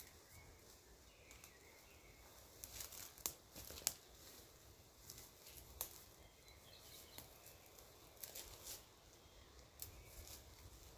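Quiet rustling of leafy branches being pulled down by hand, with sharp crackles and snaps of young shoots being picked off, clustered a few seconds in and again later on.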